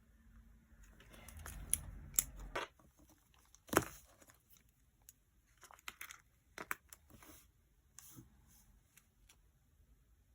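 Paper and stickers handled at a desk while decorating a journal: a stretch of rustling handling with small clicks in the first few seconds, a single sharp tap near four seconds, then scattered lighter clicks and rustles.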